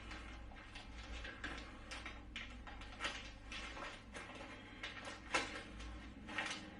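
Scattered small clicks and taps of plastic and metal parts being handled as a T12 soldering tip (BC3) is fitted into the soldering iron handle, over a faint steady low hum.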